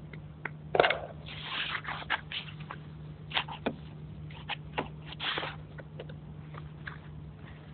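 Hands handling a projector and its plastic lens cap on a sheet of foam packing wrap: scattered clicks and short rustles, the loudest click about a second in, over a steady low hum.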